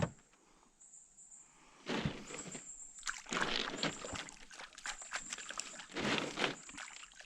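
Water sloshing and splashing in a small fishing boat while a freshly caught catfish is handled, in a few irregular bursts: one about two seconds in, a longer one near the middle and another near the end.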